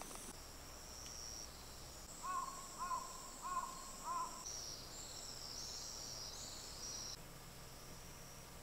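A bird calls four short times in quick succession, over a steady high-pitched chirring of insects.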